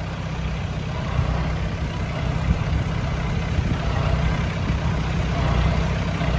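Small utility vehicle driving slowly along a dirt farm track: a steady low engine drone with some bumping from the ride.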